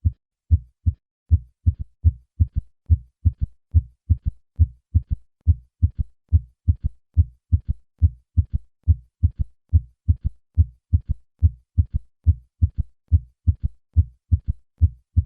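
Heart sounds with a third heart sound: a regular run of short, low thumps repeating about three times a second, the first and second heart sounds followed by a faint early-diastolic third sound in a galloping triple rhythm. This ventricular gallop can be normal under 40 but points to heart failure in older patients.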